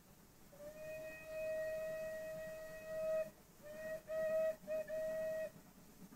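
Steam locomotive whistle: one long blast of nearly three seconds, then a string of short toots.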